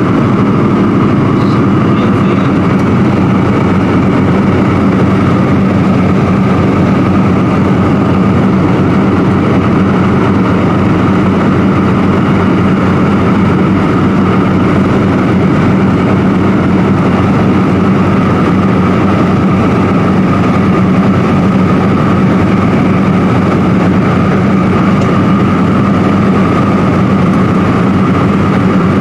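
Ford Tri-Motor's three radial engines and propellers droning steadily in flight, heard from inside the cabin as an even, unchanging hum.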